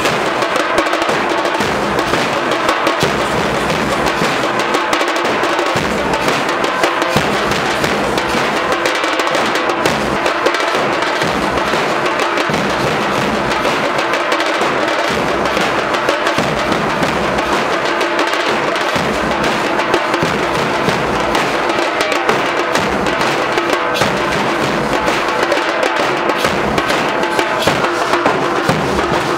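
Street drum band of large bass drums and smaller side drums beaten with sticks, playing a dense, fast, unbroken rhythm at a steady loud level.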